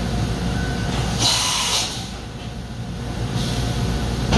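Automatic tool change on a 2015 Mazak VCN 530C vertical machining center: over the machine's steady hum, a short loud burst of air hiss about a second in, a fainter hiss later, and a sharp knock at the very end as the new tool is seated in the spindle.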